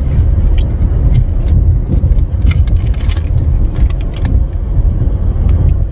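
Steady low road and engine rumble inside a moving car's cabin. Irregular light clicks and rattles come and go in the middle of the stretch.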